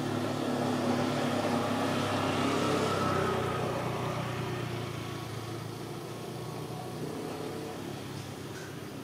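A motor vehicle's engine running close by, swelling to its loudest about two to three seconds in and then fading as it passes.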